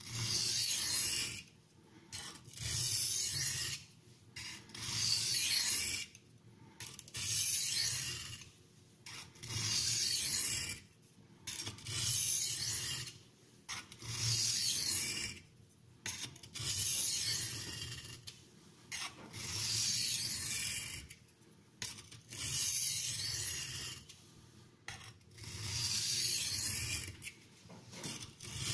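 A carbon-steel knife blade stroked along a Norton India oilstone: long, even, scraping rasps, about one stroke every two seconds, with short pauses between them.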